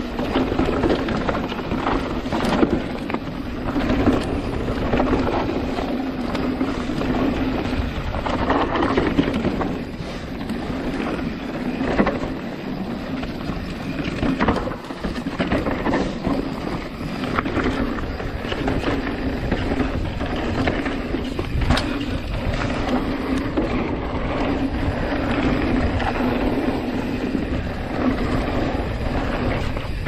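Mountain bike riding fast down a dirt trail: wind on the microphone and tyres rolling over dirt, with frequent knocks and rattles from the bike over bumps.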